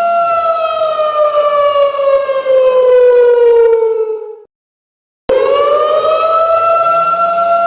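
Siren alarm: a steady wailing tone that slides slowly down in pitch for about four seconds, cuts off abruptly to dead silence for under a second, then starts again, sweeps back up and holds steady.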